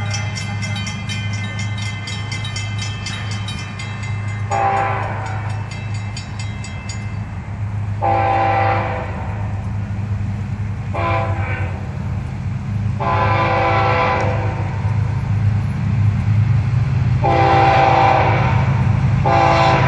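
Florida East Coast Railway diesel freight locomotive sounding its multi-tone air horn in six blasts, some short and some long, over the steady low rumble of the diesel engines, growing louder as the train approaches. A grade-crossing bell rings rapidly through the first several seconds.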